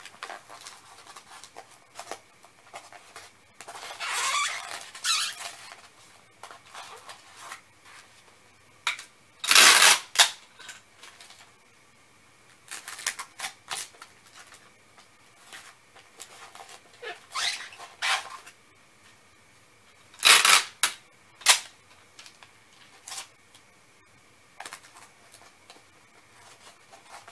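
Packing tape pulled off the roll in several short pulls while a cardboard shipping box is sealed, with quieter rustling and handling in between; the loudest pulls come near the middle and about three-quarters of the way through.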